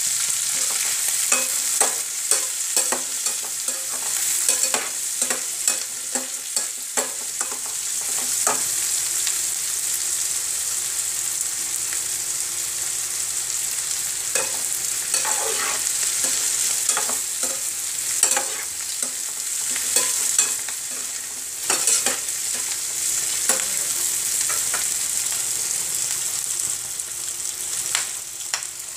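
Sliced onions and whole spices sizzling steadily in hot oil in a pan, while a perforated steel spatula stirs them, scraping and clicking against the metal at irregular moments.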